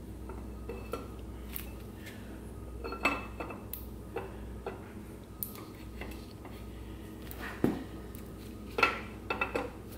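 Camshaft being slid into the cam bearings of an LQ4 V8 block on a long installation rod, with scattered light metallic clinks and knocks as it goes in. The sharpest knocks come about three seconds in and in a quick cluster near the end.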